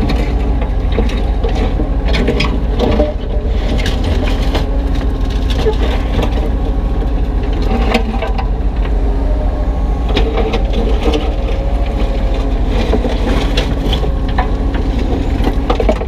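Kubota U35-3 mini excavator's diesel engine running steadily under hydraulic load, while its bucket scrapes through broken concrete and the chunks knock and clatter against each other and the steel bucket.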